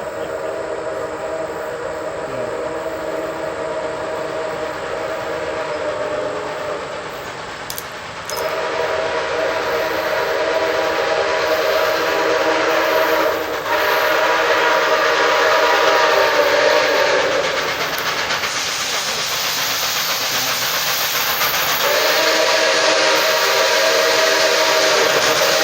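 Nickel Plate Road 765, a 2-8-4 Berkshire steam locomotive, blowing its chime whistle in three long blasts, each a steady chord of several notes, over steady steam hiss. The hiss grows louder in the gap before the third blast.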